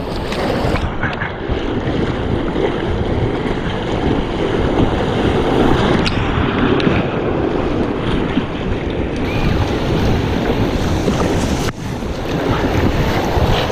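Whitewater rapid rushing and splashing around an inflatable kayak as it runs through, with wind buffeting the microphone.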